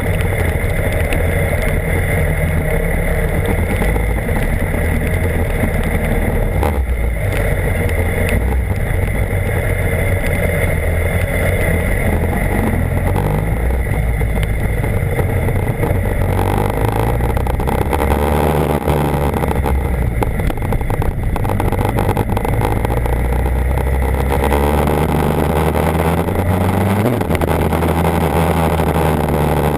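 BMW HP4's inline-four engine running under way, its pitch rising and falling several times with throttle and gear changes, over a steady rushing noise.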